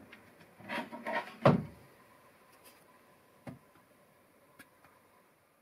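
Wood and metal clatter of a stainless twin-burner galley stove being pulled out of its wooden cabinet and set up, with one heavy thump about a second and a half in, a smaller knock later and a couple of light clicks.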